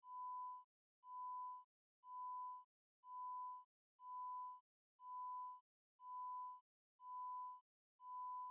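Countdown beeps: a steady, pure high tone, each beep about two-thirds of a second long, repeating once a second with silence between, nine times, one for each number of the count.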